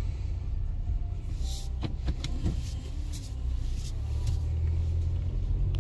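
Car engine and road rumble heard from inside the cabin as the car backs up and then pulls away, with a few scattered light clicks.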